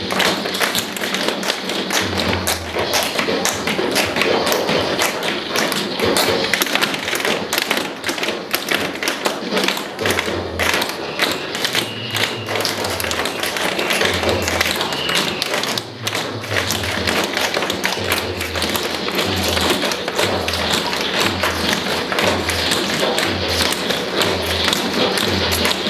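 Many pairs of tap shoes clicking and stomping rapidly on a wooden dance floor as a group tap-dances in unison, over recorded music with a pulsing bass beat.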